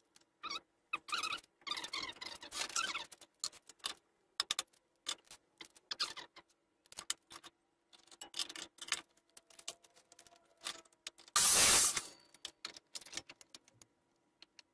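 Workshop handling noise: small wooden pieces and tools clicking, knocking and scraping on the bench, with a loud half-second burst of noise about eleven and a half seconds in and a faint steady hum underneath.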